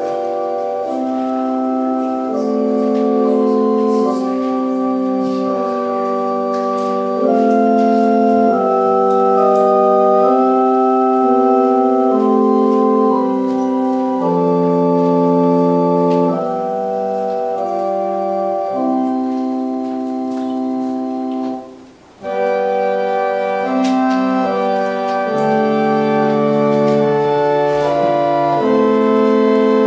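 Organ playing a slow prelude in sustained chords that change every second or two, each chord held steady without fading. The music breaks off briefly about 22 seconds in, then resumes.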